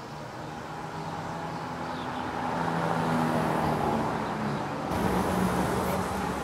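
Cars passing on a town street: engine hum and tyre noise growing louder as vehicles approach. About five seconds in, the sound changes abruptly to a different outdoor background.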